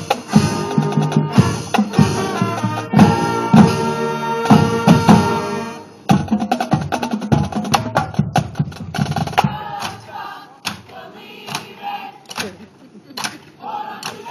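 Marching band playing, brass chords over drums, cutting off abruptly about six seconds in. After that come scattered, quieter drum strikes with some fainter band sound.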